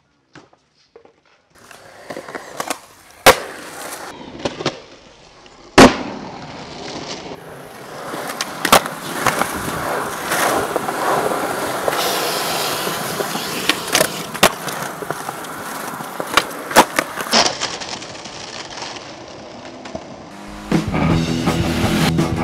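Skateboard wheels rolling on concrete, broken by sharp cracks of the board popping and landing, the loudest about six seconds in. Music comes in near the end.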